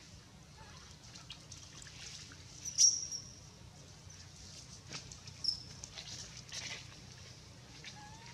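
Infant long-tailed macaque giving short, high-pitched squeaks: the loudest about three seconds in, another a couple of seconds later, with faint scattered clicks between.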